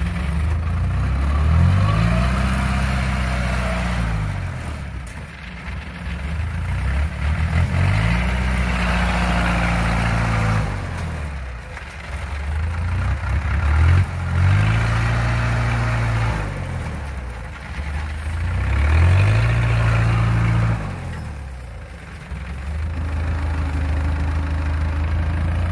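Engine of a tracked rice-hauling carrier running under load, revving up and easing back off in a repeating cycle, about five times.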